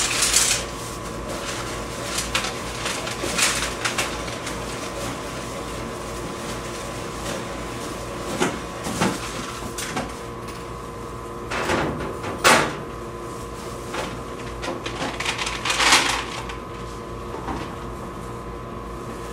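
Scattered clicks and clunks of parts being handled at an open vending machine, louder knocks about 12 and 16 seconds in, over the machine's steady electrical hum.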